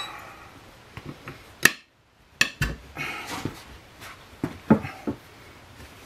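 Steel tire irons clinking and knocking against each other and the alloy rim as they are worked in under the bead of a motorcycle rear tire, a handful of sharp metallic taps, loudest about a second and a half in and again near the end.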